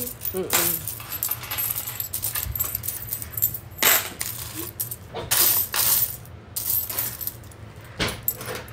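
Loose metal coins clinking and jingling as they are picked up and dropped into tubs and steel trays while being sorted and counted, in irregular short bursts.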